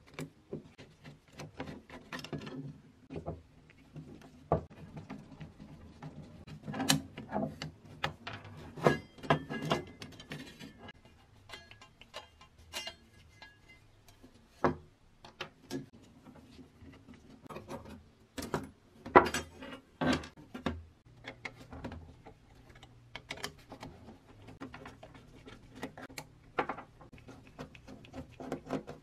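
Irregular metallic clicks, taps and clinks as a screwdriver and a small wrench work the little nuts and bolts of a rusty pressed-steel Meccano toy seaplane. The loosened steel parts knock against a wooden workbench.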